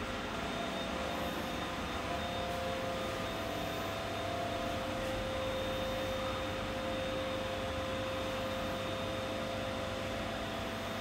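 Steady machinery hum and hiss of aquarium equipment, with a few faint held tones running through it.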